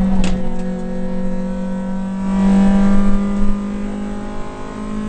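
Rally car's engine running, heard from inside the cabin, its pitch nearly steady. A short sharp click comes about a quarter second in.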